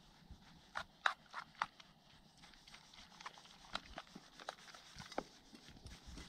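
Metal spoon clinking against an enamel bowl while beating raw eggs into chopped greens: light, irregular clicks, several in quick succession about a second in and more spaced out later.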